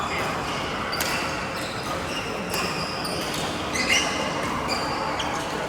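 Badminton rally on an indoor court: sharp racket-on-shuttlecock hits about every second or so, with short squeaks of shoes on the court floor over a steady hall background.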